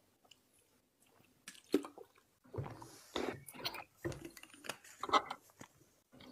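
A plastic water bottle being handled, with water sloshing inside and the plastic clicking and crinkling in short, irregular bursts; the sharpest clicks come about a second and a half in.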